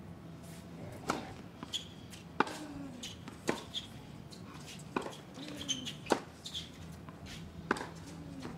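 Tennis rally on an outdoor hard court: a string of sharp pops as the ball is struck by rackets and bounces, about one every second or so.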